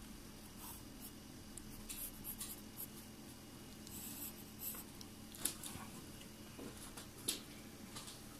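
Pencil scratching over sketchbook paper in short, irregular strokes, faint, with a couple of sharper taps of the lead partway through.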